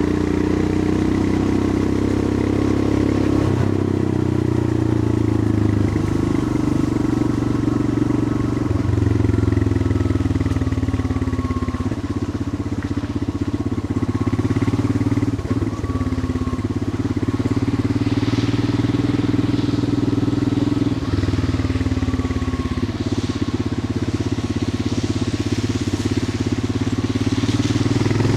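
Royal Enfield Himalayan 411's air-cooled 411 cc single-cylinder engine running steadily under way, its note shifting up and down several times through the ride.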